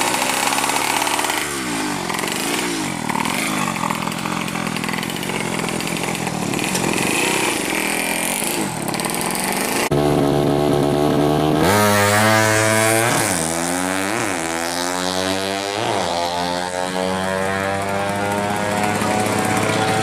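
Yamaha Alfa two-stroke motorcycle engine, bored to 116 cc with a 35 mm carburettor, being revved up and down. The sound changes abruptly about halfway. After that come several quick blips of the throttle and a steady climb in revs near the end.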